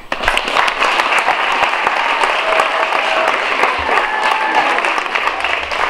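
Audience applauding: dense clapping that breaks out suddenly just after the start and keeps going, with a few voices mixed in.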